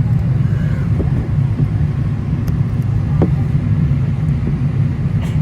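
Steady low rumble inside a moving vehicle, with a few faint clicks.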